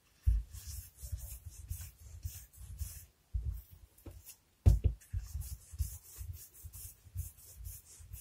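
Wooden rolling pin rolling out a lump of cocoa biscuit dough on a hard countertop: repeated rumbling strokes, about two or three a second. Two sharp knocks of the pin on the worktop, one near the start and a louder one about halfway through.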